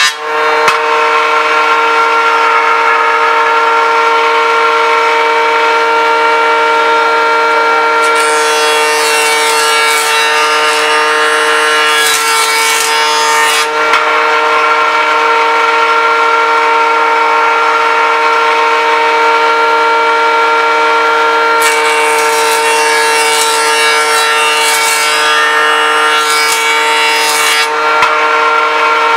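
Benchtop jointer running with a steady motor whine, while a solid oak board is fed over its cutterhead. Two cutting passes add a hissing rasp, one starting about eight seconds in and another about twenty-two seconds in, each lasting five to six seconds.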